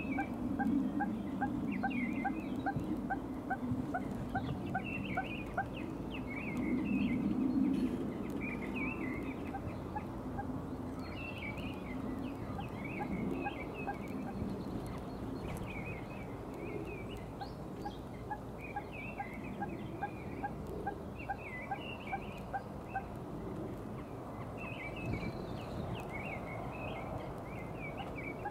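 Birds calling by the canal: chattering chirps run throughout, while a rapid string of evenly repeated short call notes, about two or three a second, sounds in the first six seconds and again from about 15 to 23 seconds in. A low rumble sits underneath, strongest in the first eight seconds.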